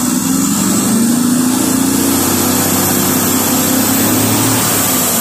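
Turbocharged diesel truck engine held at raised revs, its turbocharger giving a high-pitched whine that climbs slowly and begins to fall near the end as the revs come down.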